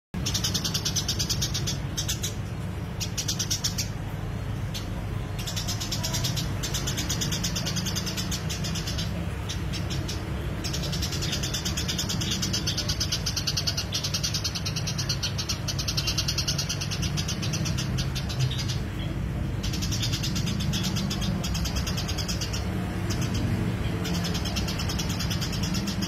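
Eurasian tree sparrow singing in a fast, continuous chatter of high chirps, in long bouts broken by short pauses, over a low steady hum.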